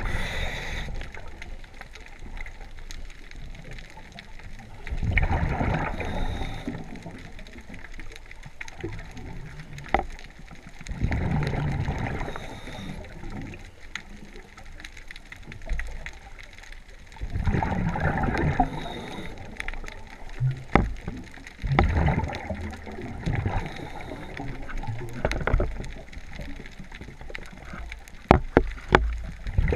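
Scuba regulator exhaust bubbles, heard underwater: a burst of rushing, gurgling bubbles about every five seconds as the diver breathes out, quieter between breaths. A few sharp clicks near the end.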